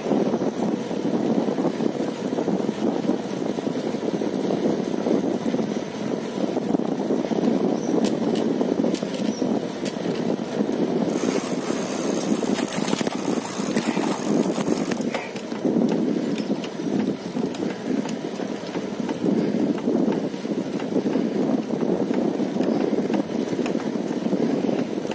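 Steady, uneven rushing noise of wind over the microphone while riding along a road, with a brief hiss about halfway through.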